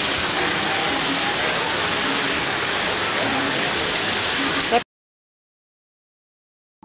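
Heavy rain pouring down steadily, a dense hiss of rain on a street. It cuts off abruptly about five seconds in, leaving silence.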